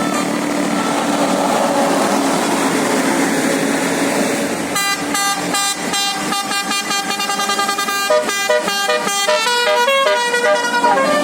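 A bus running for the first few seconds, then about five seconds in a 'basuri' telolet musical horn on an Indonesian tour bus plays a quick melody of stepped notes that runs until near the end.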